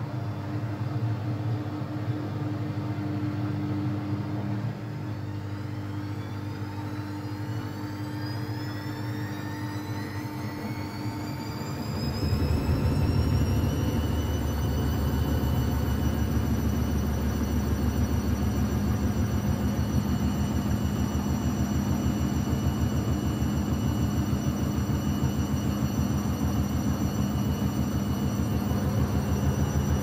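Whirlpool front-loading washing machine ramping up into a spin. The motor's whine rises in pitch over several seconds and then holds steady. About twelve seconds in, a heavy low rumble starts and continues: an unbalanced load that sets the machine moving.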